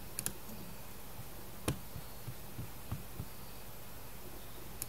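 Computer mouse clicking over a steady low hum: a quick double click just after the start, a single sharper click about a second and a half later, a few faint ticks, and another double click near the end.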